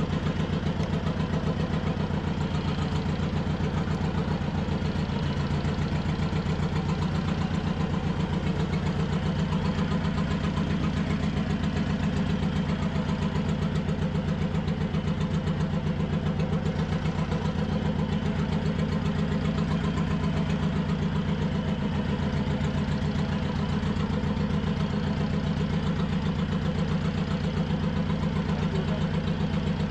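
A fishing boat's engine idling steadily.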